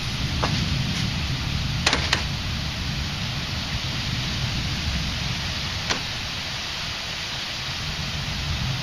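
Steady rain hiss in a thunderstorm over a low, uneven rumble. A few sharp ticks close to the microphone stand out, two of them in quick succession about two seconds in.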